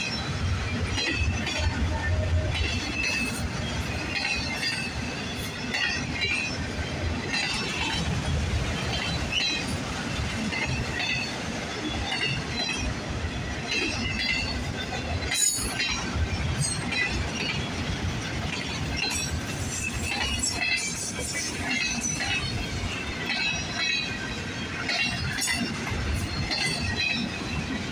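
Freight train of autorack cars rolling steadily past: a continuous rumble of steel wheels on rail, with scattered short high-pitched squeals and squeaks from the wheels throughout.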